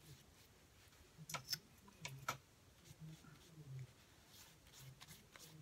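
Near silence with a few faint clicks and taps, clustered in the first half, from a paintbrush dabbing paint onto journal paper.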